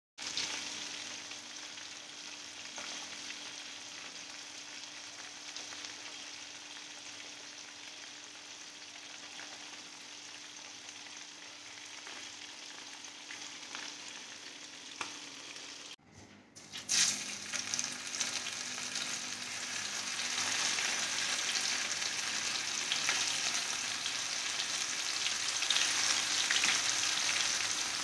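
Floured white fish frying in hot oil: a steady sizzle. About sixteen seconds in it breaks off briefly, and a louder, crackling sizzle of anchovies frying in oil follows and grows stronger towards the end.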